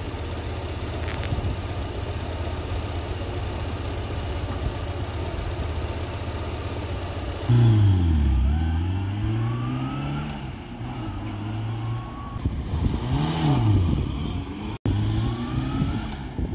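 Vauxhall Viva four-cylinder engine idling steadily at low revs, warm and with the vacuum advance disconnected for setting the ignition timing. About seven seconds in it switches to the car pulling away, the engine note climbing and dropping several times through gear changes as it drives off.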